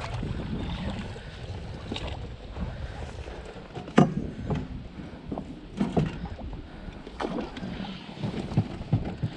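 A hooked muskie splashing at the surface beside an inflatable raft, over a low wind rumble on the microphone. A few short, sharp splashes stand out, the loudest about four seconds in.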